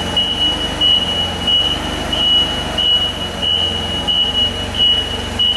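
Back-up alarm beeping evenly, about three beeps every two seconds, over the low, steady running of an engine, as from a machine reversing.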